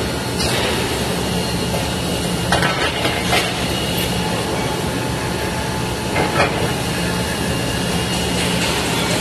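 Steady drone of welding-shop machinery with a low hum, broken by a few light metal clinks around three seconds in and again about six seconds in.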